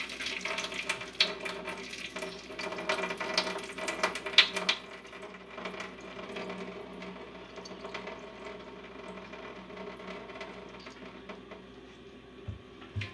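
Cooking water pouring from a tilted metal pot of ramen noodles into a stainless steel sink, with clinks and knocks of metal during the first five seconds, then a quieter steady trickle.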